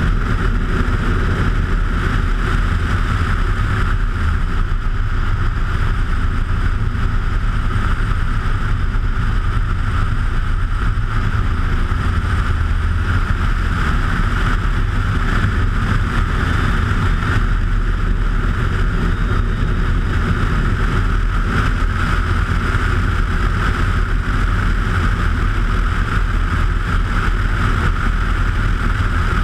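Bushcaddy ultralight floatplane in level flight: its engine drones steadily, mixed with wind rushing over a camera mounted outside on the wing strut.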